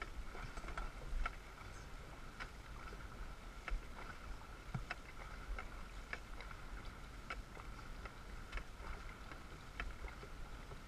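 Dragon boat paddles striking the water in unison, a sharp splash about every 1.2 seconds, over a steady rush of water along the hull and wind on the microphone.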